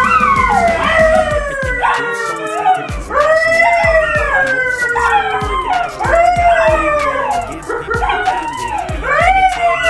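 A dog howling over and over, each howl rising briefly and then sliding down in pitch, with background music under it.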